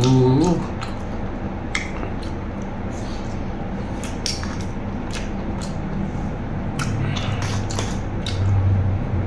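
Metal spoon and fork scraping and clicking against a large metal tray as rice and stir-fried pork with basil are mixed, in scattered short clinks.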